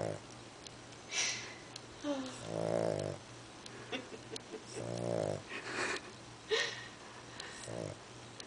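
An overweight dog snoring in its sleep: long, pitched, droning snores a couple of seconds apart, with short, breathy, hissing snorts between them.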